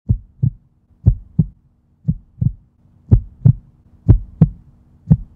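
Heartbeat sound effect: paired low thumps, a lub-dub about once a second, over a faint steady hum.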